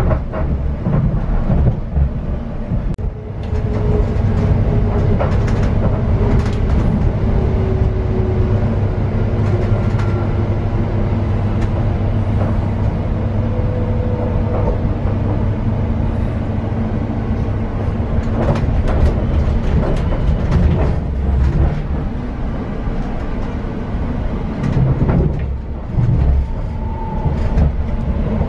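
Cabin noise inside a Greater Anglia Class 720 electric multiple unit under way: a steady low rumble of the train running on the track, with scattered clicks and rattles and a faint whine that glides slowly up in pitch.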